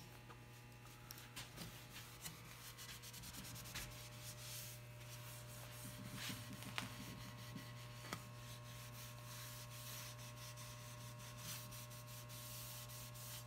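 Faint rubbing of a cloth wiped over the sealed wooden hull of a boat half model, with small handling clicks.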